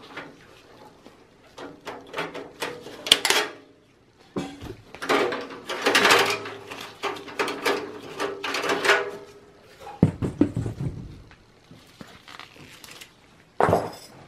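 Handling noise from a desktop PC's front USB and audio port panel and its cable being worked out of the steel case: a run of clicks, then a long stretch of scraping and rubbing as the cable is pulled through the case, a dull thump about ten seconds in, and a sharp knock near the end.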